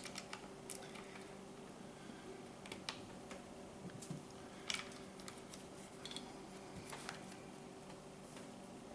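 Faint scattered clicks and taps of small parts being handled as open sights are fitted onto a gun chassis's Picatinny rail, with one sharper click about halfway through, over a faint steady hum.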